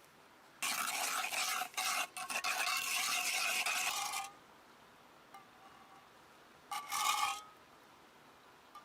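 A rasping, scraping sound: one long stretch of about four seconds, then a second, shorter one near the end.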